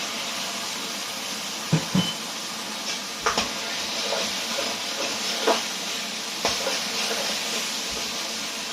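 Pork and sauce sizzling in a hot wok, a steady hiss, with the stirring utensil knocking and scraping against the wok several times.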